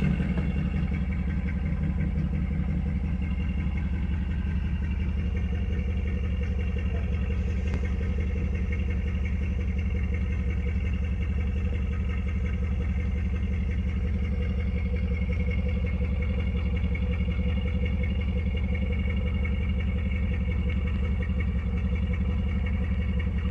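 Carbureted car engine idling steadily just after being started, warming up.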